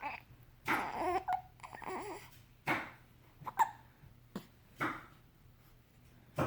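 Three-week-old baby hiccuping repeatedly, a short hiccup every second or two, with a brief whimpering vocal sound about a second in.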